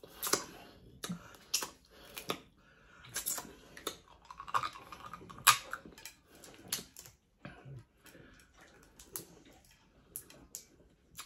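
Dungeness crab being eaten close to the microphone: chewing, with irregular sharp clicks and cracks from the shell being broken and picked apart.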